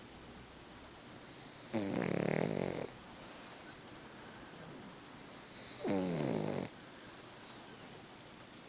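Pug snoring in its sleep: two snores about four seconds apart, each about a second long.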